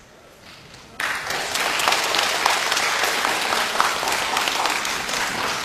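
Audience applause breaking out suddenly about a second in: many hands clapping in a dense, steady wash that eases slightly near the end.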